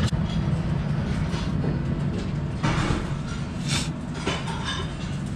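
Steady low rumble of restaurant room noise, with a couple of short, noisy sounds about two and a half and three and a half seconds in.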